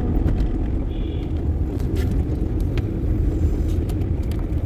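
Car cabin noise while driving: a steady low rumble of road and engine, with a few faint clicks.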